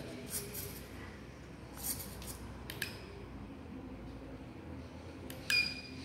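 A few sharp clicks and short electronic beeps from the pistol-grip RC transmitter as its switches are worked to change the truck's light modes. The loudest click and beep comes about five and a half seconds in, over a faint low hum.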